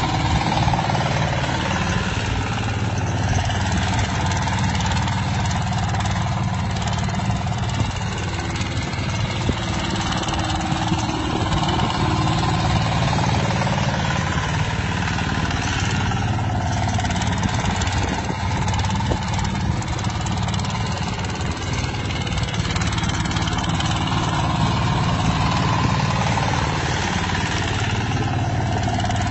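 Engine of a boat-type paddy tractor running steadily under load as it works through a flooded rice field.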